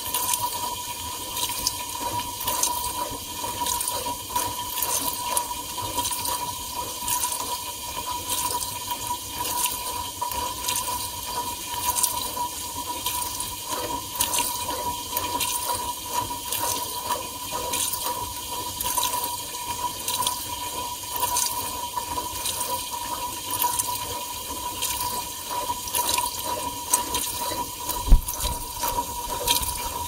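Water spraying and splashing inside a Whirlpool dishwasher in its wash cycle, heard from inside the tub as the spray arms throw water against the racks and walls. A steady whine runs underneath, and a single thump comes near the end.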